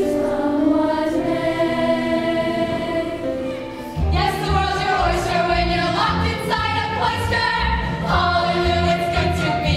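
A middle school choir singing sustained notes in unison. About four seconds in, it cuts to a stage musical number: a cast of singers over band accompaniment with a pulsing bass beat.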